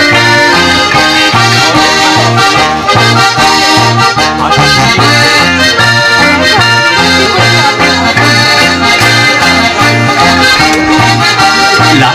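Live band playing an instrumental passage of upbeat German-language dance music. A strummed acoustic guitar and an electric guitar play over a steady bass beat and a sustained melody line.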